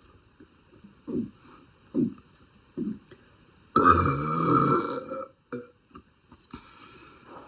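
A girl burping: three short, low sounds about a second apart, then one long, loud burp lasting about a second and a half.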